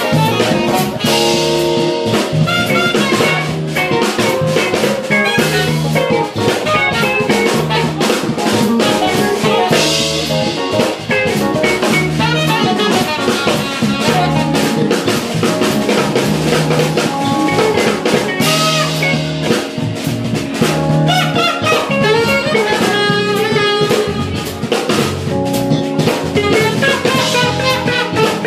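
Small jazz-fusion band playing live: drum kit, electric bass, electric guitar and saxophone together in a steady groove.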